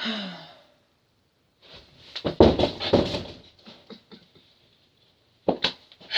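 A person struggling to get up and moving about: a short grunt at the start, a cluster of thumps and rustling about two seconds in, then a single sharp knock near the end.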